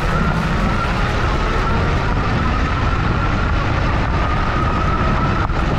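Hiboy P6 fat-tire e-bike riding over a gravel dirt road, heard up close at the rear wheel: a loud, steady rumble of the knobby fat tyres and wind, with a steady whine from the rear hub motor.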